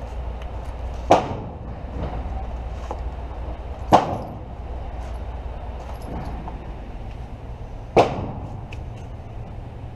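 Three gunshots, spaced a few seconds apart, each followed by a brief ringing echo.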